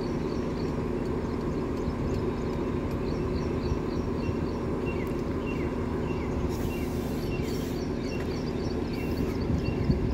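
Steady engine hum, with small birds chirping over it again and again.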